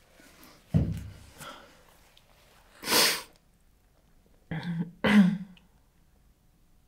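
A woman sniffling after crying: a few short breaths and sniffs through the nose, the sharpest about three seconds in and two more just before five seconds.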